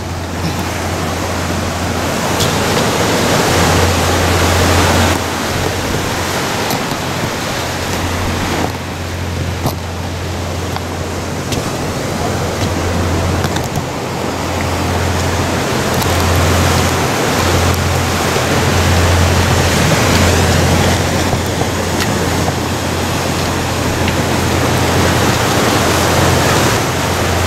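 Sea surf washing and breaking among shoreline boulders: a steady rushing noise, with a low rumble of wind on the microphone that swells and drops.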